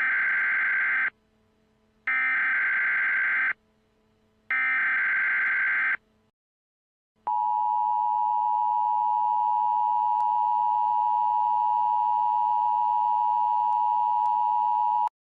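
Emergency Alert System alert: three harsh digital SAME header data bursts, each about a second and a half long. After a short pause comes the steady two-tone EAS attention signal (853 and 960 Hz together), held for about eight seconds before it cuts off suddenly.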